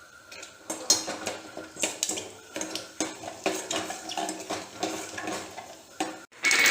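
Metal spoon stirring in a pan, clinking and scraping irregularly against the metal, while tempering spices and dried red chillies fry in oil.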